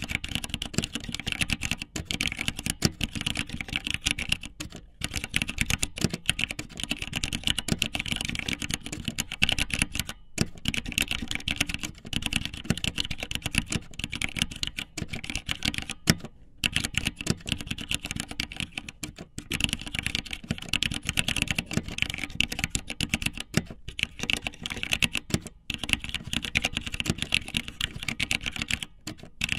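Fast, irregular clicking like typing on a keyboard, in runs broken by short pauses every few seconds.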